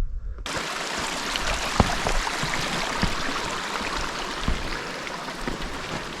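Running water, a stream or cascade, making a steady rushing hiss that starts abruptly about half a second in.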